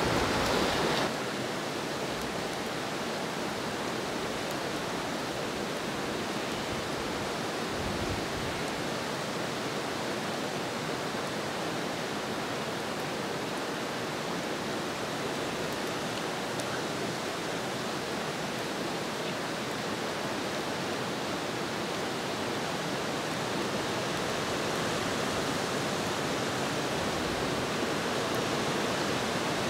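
Steady rushing of a mountain river, an even noise with no distinct events. The noise is a little louder in the first second.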